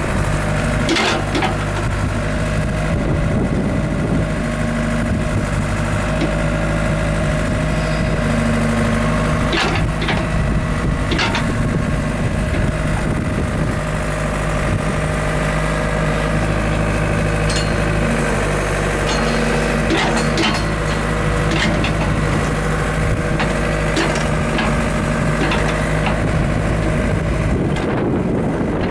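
Diesel engine of a small Caterpillar tracked excavator running steadily while the levers are worked, its tone shifting slightly as the hydraulics take load. Short sharp knocks come now and then, about a dozen in all.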